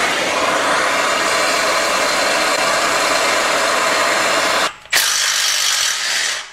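MAP gas torch burning at full flame with a steady loud hiss, heating a seized exhaust nut. After a brief break near the end, a small electric impact runs on the nut to spin it off.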